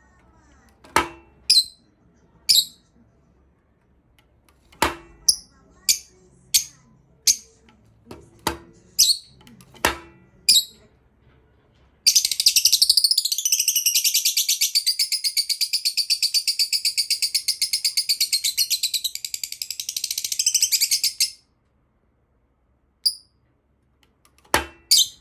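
Lovebird giving short, sharp chirps about once a second, then a continuous rapid, high-pitched chatter lasting about nine seconds that cuts off suddenly, followed by a few more single chirps.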